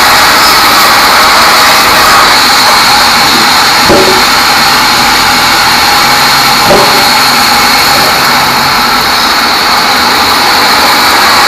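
Large band saw (bandsaw mill) ripping a small teak log lengthwise: loud, steady machine noise with a high whine from the blade, and two brief knocks about four and seven seconds in.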